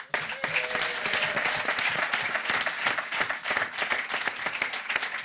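Audience applauding, a dense patter of many hands clapping that starts suddenly and tails off near the end.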